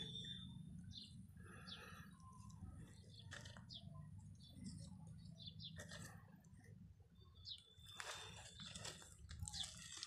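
Faint crunching and rustling of loose soil and dry grass as a hand presses earth down around a freshly planted sapling, louder near the end, with a few faint bird chirps.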